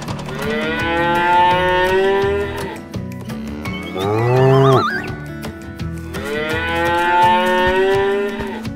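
Cows mooing: two long moos, one near the start and one near the end, with a shorter rising sound between them.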